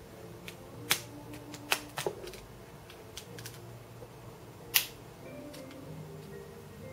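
Sharp plastic clicks from a smartphone and small repair tools being handled at the start of a teardown: a few in the first two seconds and a louder single click about five seconds in.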